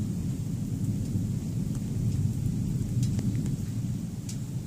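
Thunder rumbling continuously and deep, with a few scattered light ticks over it.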